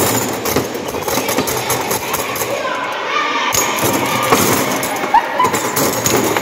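Foosball table in play: rods rattling and spinning, with rapid irregular clacks and knocks as the ball is struck by the figures and hits the table walls. People talk over it.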